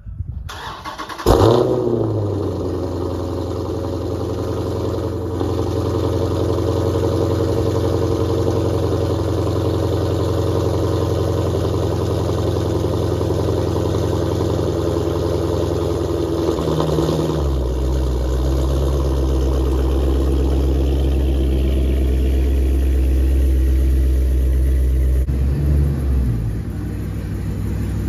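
Dodge Challenger Scat Pack's 392 (6.4-litre) HEMI V8, catless with headers, starting up with a loud flare about a second in, then settling into a steady fast idle. A little past halfway the idle steps down to a lower, deeper note.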